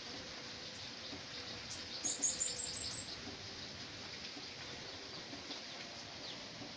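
A small bird gives a quick run of about six high, thin chirps about two seconds in, over a steady background hiss.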